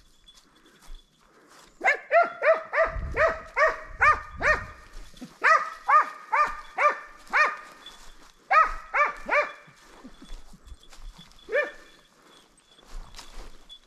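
Hunting hound barking in quick runs of about three barks a second, with short pauses between runs and a lone bark near the end: a hound giving voice on the trail.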